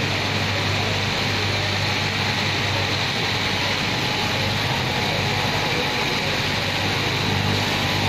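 Electric straight-knife cutting machine running steadily, its motor humming as the reciprocating blade cuts through a thick stacked lay of denim.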